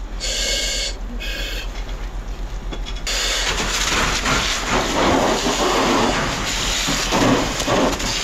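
A fire hose nozzle opens about three seconds in, and water sprays with a steady, loud rushing hiss. Two short hissing puffs come before it.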